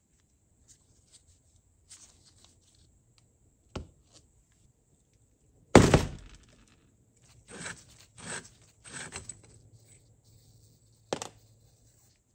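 Workshop handling of tools and parts: a faint knock, then one loud, sharp knock about six seconds in, three short scrapes a second or two later, and another sharp knock near the end.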